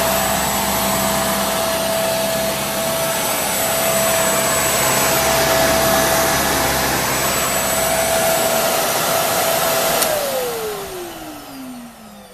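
Kenmore Intuition bagless upright vacuum cleaner running steadily with a loud whine. About ten seconds in it is switched off with a click, and its whine falls in pitch as the motor winds down.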